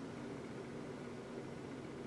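Low steady background hum and hiss of the room, with no distinct event.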